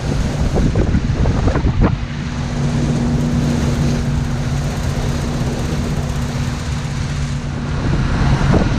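Twin Mercury outboard motors running steadily with the boat under way, a low even hum over the rush of wake water. Wind buffets the microphone, most heavily in the first two seconds.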